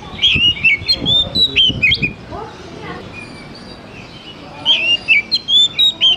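Oriental magpie-robin singing: two bursts of quick chirps and whistled, sweeping notes, with a pause of about two and a half seconds between them.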